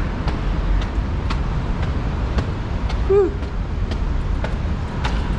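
Steady low rumble of road traffic and wind, with scattered light clicks and a brief vocal sound that rises and falls about three seconds in.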